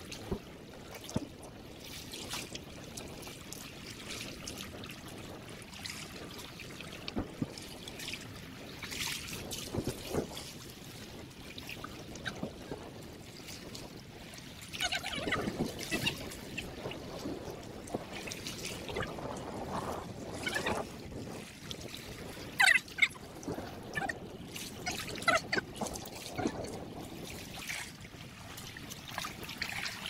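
Sea water sloshing and splashing irregularly as a person wades waist-deep and drags a large fishing net through it; the splashing gets busier and louder about halfway through.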